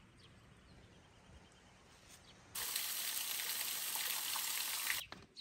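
Faint outdoor ambience, then about two and a half seconds in, the loud, steady rush of a stream running over rocks, which cuts off suddenly after about two and a half seconds.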